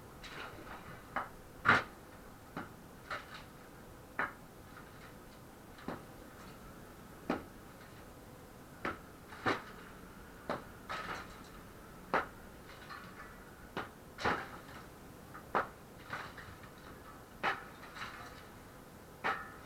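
Scattered sharp knocks and clinks of hard objects striking one another, irregular, about one every second or two, some with a short ring.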